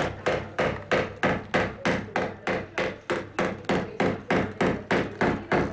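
Mallet blows on a Persian rug stretched on a wooden frame, struck along a repaired row. The knocks come in a steady rhythm of about three a second.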